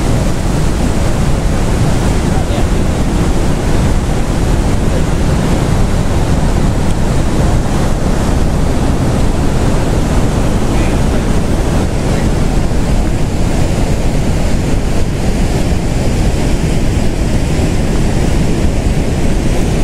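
Niagara's Horseshoe Falls: the loud, steady rush of a huge volume of water plunging over the brink, without a break.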